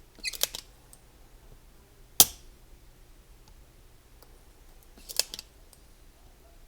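Sharp clicks of small hand tools being handled during board rework: a short clatter of clicks just after the start, a single sharp click about two seconds in, and another short clatter about five seconds in.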